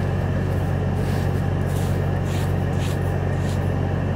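Steady low hum of an idling truck engine, with the soft rustle of loose wheat grain being pushed around by hand.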